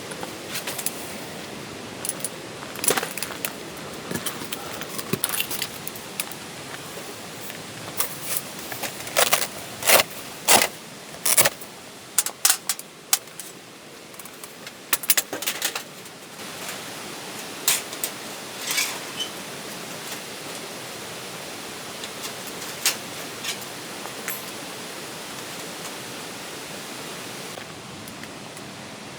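Irregular sharp clinks and clacks, like small hard objects being handled, over a steady hiss. They come thickest about a third of the way in and grow sparse in the second half.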